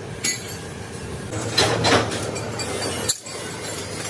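Cut steel rods clinking and clattering against one another: a sharp metallic knock at the start, a louder run of clatter in the middle and another knock near the end, over a steady workshop hum.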